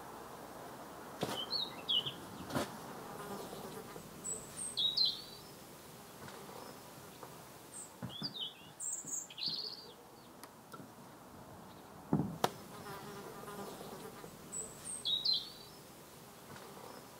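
An insect buzzing close by while small birds chirp in short calls. There are a few sharp knocks of a pickaxe striking the ground: one about a second in, one at two and a half seconds, and two close together about twelve seconds in.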